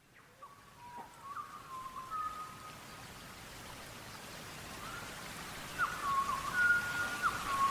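Rainforest rain hiss fading in from silence, with a bird's short whistled calls repeating over it.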